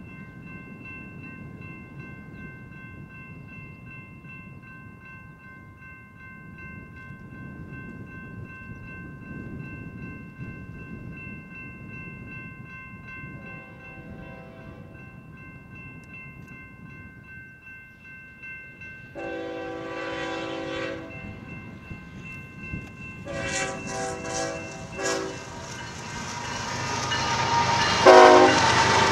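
A railroad grade-crossing warning bell rings steadily while an approaching BNSF freight locomotive, number 7218, sounds its air horn. There is a series of long blasts, the first faint and each one louder than the one before. The rumble of the train rises toward the end as it nears the crossing.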